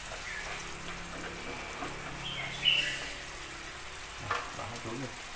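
Snails cooking in their liquid in a frying pan, stirred at first and then left to simmer, giving a steady watery simmering hiss. A few short high chirps sound over it, the loudest about two and a half seconds in.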